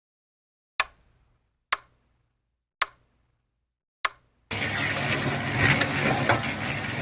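Four sharp clicks about a second apart, then a small electric motor starts and runs steadily with a buzzing hum.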